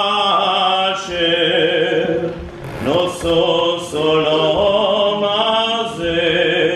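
Boys' choir singing a Selichos melody in Hebrew, with a short break about two and a half seconds in before the voices come back in.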